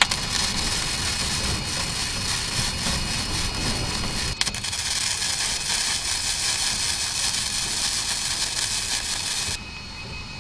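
Titanium flux-core MIG welder arc running steadily as a bead is laid, with a short break about four seconds in. It stops near the end.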